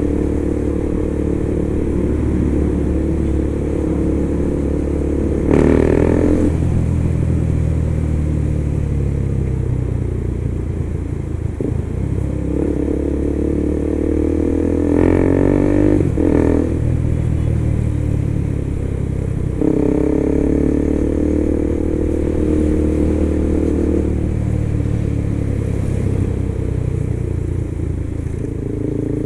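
KTM 390 motorcycle's single-cylinder engine running under way, its pitch climbing and dropping back several times as the rider accelerates and shifts. There are louder surges of revving about six and fifteen seconds in.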